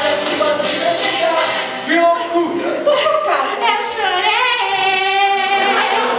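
Live stage musical number: cast singing with band accompaniment, a drum beat under the first couple of seconds, then one singer holding a long note with vibrato through the second half.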